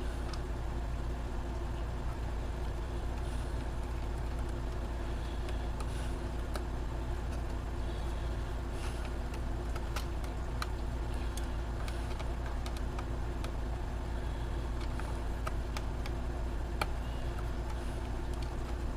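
Steady low background hum with scattered light clicks: a small screwdriver and plastic cover being handled while a laptop's hard drive bay is opened.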